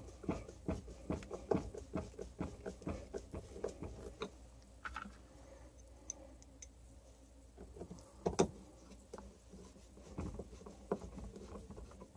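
Hand screwdriver driving screws into the plastic handle housing of a hammer drill: a quick run of small clicks, about three or four a second, that stops about four seconds in. Quieter handling follows, with a single knock about eight seconds in and a few more clicks near the end.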